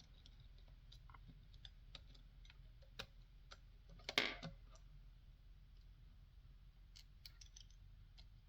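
Faint, scattered small clicks and taps of tiny Phillips screws and a small screwdriver against the plastic shell of a Joy-Con controller, with one short, louder scrape about four seconds in.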